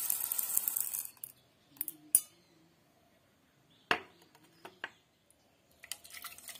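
Dry red lentils pouring in a stream into a steel bowl, a dense rattling hiss for about the first second, followed by a few separate clinks and knocks on the bowl, two of them loud. Near the end, a patter of small knocks and splashes as pieces drop into water in a pan.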